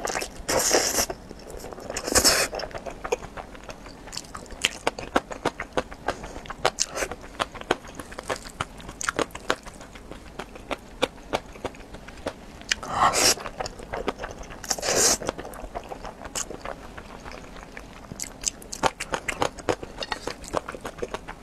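Close-miked eating of thick noodles in black bean sauce: loud slurps as strands are sucked in, at the start, about two seconds in and twice past the middle, with rapid wet chewing clicks in between.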